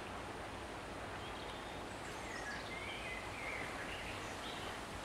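Outdoor ambience: a few faint bird chirps over a steady background hiss.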